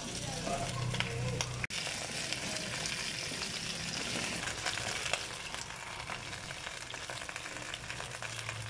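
Chicken feet frying in a hot wok, a steady sizzle with small clicks and scrapes as wooden spatulas stir them.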